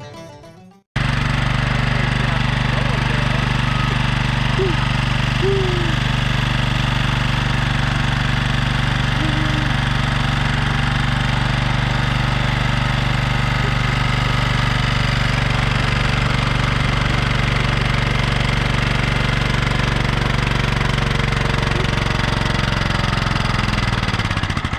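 Kohler lawn tractor engine running steadily with its oil drained out. Near the end its pitch drops and it stops: the engine giving out from running with no oil.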